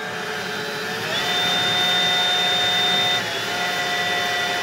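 A small electric motor whining steadily, its pitch stepping up about a second in and dipping slightly around three seconds in.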